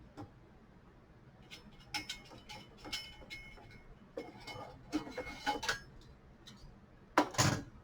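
A metal lid being handled and lifted off an air duct: scattered light metallic clicks and clinks with some ringing, then a louder clatter near the end.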